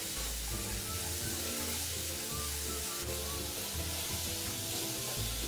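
Chopped red onion and garlic sizzling in hot oil in a wok as they are stirred with a silicone spatula, under background music with a steady bass line.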